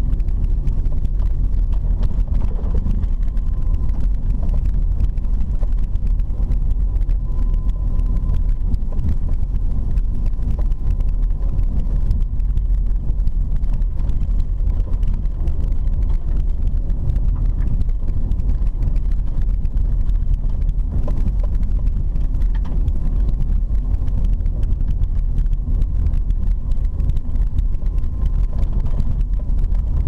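Car driving along an unpaved dirt road, heard from inside the cabin: a steady low rumble of tyres and engine.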